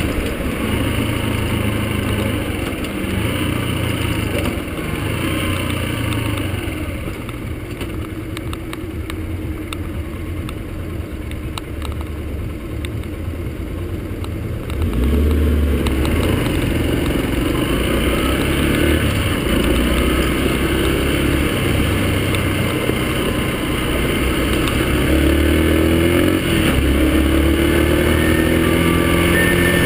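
Yamaha XTZ-125's single-cylinder four-stroke engine heard from on the bike as it rides in traffic. It drops to a low, quieter running for several seconds while the bike is close behind a van, then gets suddenly louder about halfway through as it pulls away, revving up again near the end.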